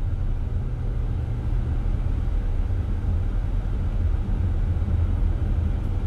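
Steady low rumble picked up by a phone's microphone, with no clear events in it.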